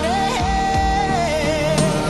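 Song music: a long held melody note with vibrato over a steady accompaniment, stepping down lower near the end.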